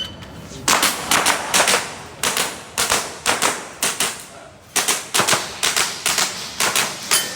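Airsoft pistol shots fired in quick pairs, about two dozen sharp cracks with short pauses between the groups.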